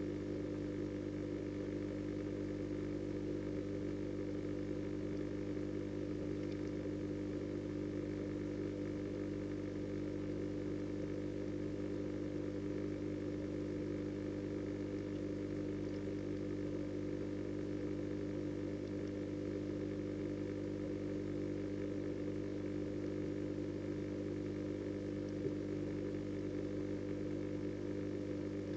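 Steady electric hum of a pond pump feeding the bio-filter, heard through the water by a submerged camera: several fixed tones that never change.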